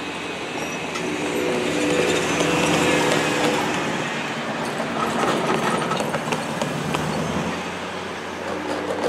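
Road vehicles driving past close over a railroad grade crossing, the sound swelling about a second in as one passes by.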